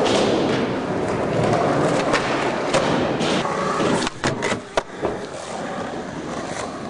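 Skateboard wheels rolling on concrete, with a quick run of sharp clacks about four seconds in as the board pops and strikes a ledge, then rolling again.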